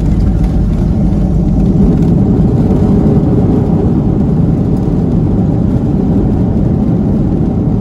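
Boeing 737-200's Pratt & Whitney JT8D turbofans running loud and steady in reverse thrust during the landing rollout, heard through the cabin window.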